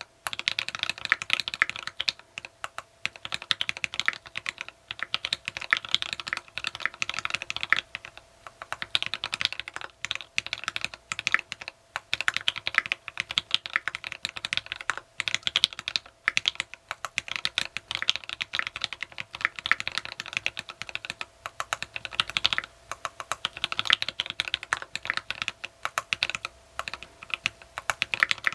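Fast typing on a custom TX66 mechanical keyboard with lubed, filmed Tealios V2 linear switches in a brass plate and PPS keycaps: a dense run of crisp keystroke clacks, with short pauses every few seconds.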